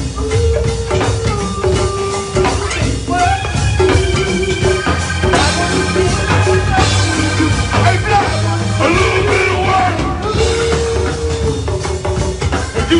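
Live go-go band playing: a continuous drum groove under held melodic notes, with some singing.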